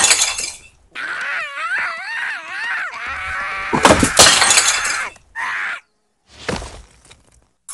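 A flowerpot falling and shattering on a hard floor: a crash at the start and another about four seconds in, with a wavering, wailing tone between them.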